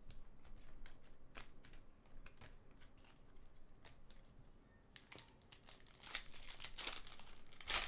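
Foil trading-card pack wrapper being torn open and crinkled. A few light ticks of cards being handled come first, then the crinkling turns dense about five seconds in and is loudest near the end.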